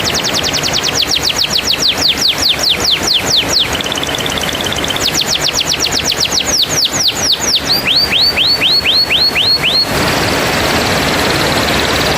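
Canary singing fast trills: runs of rapid downward-sweeping notes, a short buzzing roll about four seconds in, then a run of hooked notes and a quieter rolling passage near the end, over a steady background hiss.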